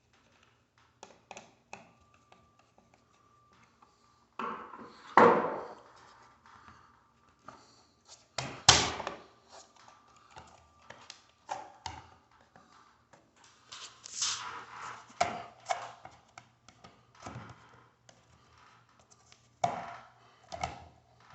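Scattered clicks, taps and knocks of hand work on a smoke detector's mounting parts while its set screws are loosened. Two louder thunks come about five and nine seconds in.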